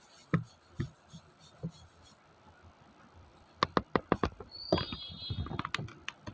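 Hand tools clinking and knocking against the metal parts of a motorcycle disc-brake caliper. A few light taps come first, then a quick run of sharp metallic clinks from about three and a half seconds in, with a brief high metallic ring.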